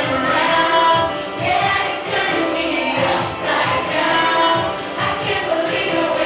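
Children's choir singing a song together with adult voices, over an instrumental music accompaniment.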